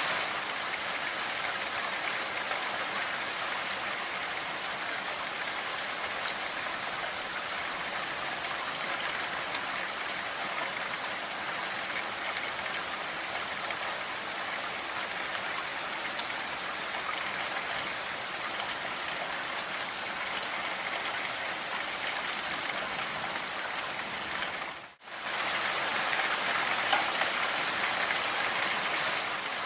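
Steady rain falling, an even hiss of drops. It fades out briefly almost to silence near the end, then comes back, as at a loop seam.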